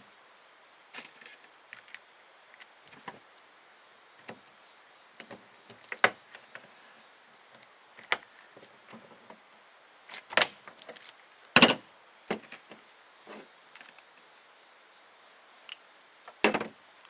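Parts of a Paslode 5300 series nailer being handled and fitted back together: scattered sharp clicks and knocks of metal and plastic pieces, several loud ones around the middle, over a steady high-pitched whine.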